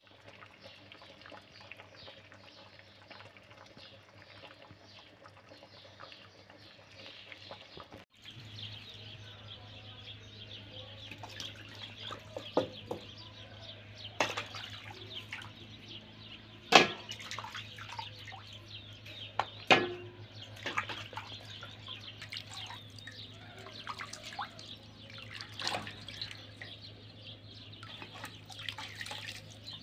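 Hands washing and scraping a singed sheep's head and trotters in a metal basin of water: splashing and dripping with scattered sharp clicks and knocks. For the first several seconds, before this begins, only a faint steady hiss from a simmering pot of kelle paça.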